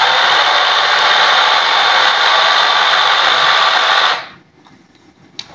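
Small electric drive motors and plastic gearboxes of toy RC cars whirring and grinding steadily under load as the cars push head-on against each other. The sound cuts off suddenly about four seconds in.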